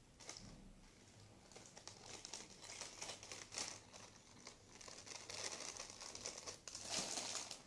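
Clear plastic jewellery packets crinkling as hands rummage through them, with small clicks of the pieces inside, growing louder and busier near the end.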